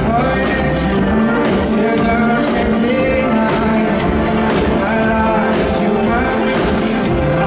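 Live band playing an electropop song on keyboards, guitar and drums, with a male lead vocal over a steady beat.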